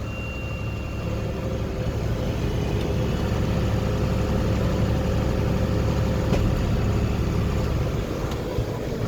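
John Deere tractor's engine running steadily while driving a round baler, with a steady hum and machinery noise that eases slightly near the end.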